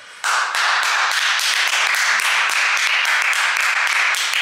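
Two people clapping fast and hard, starting suddenly just after the start, over a loud, even wash of noise.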